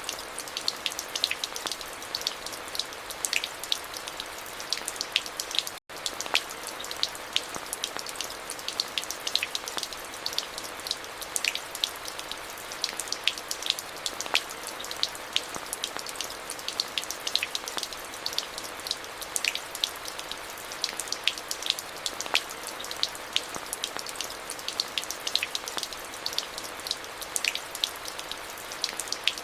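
Steady rainfall: an even hiss of rain with many sharp, close individual drop splashes pattering throughout. The sound cuts out for an instant about six seconds in.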